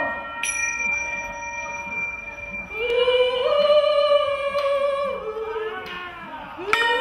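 A woman's voice singing long, wordless held notes. They come in about three seconds in and slide down in pitch after a couple of seconds. Under them, a struck metal bowl starts ringing about half a second in and keeps ringing steadily.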